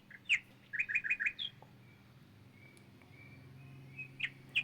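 A small songbird calling in short chirps, with a quick run of four chirps about a second in and a rising note after it, then a quieter stretch of faint whistles before more chirps near the end. A faint steady low hum sits underneath.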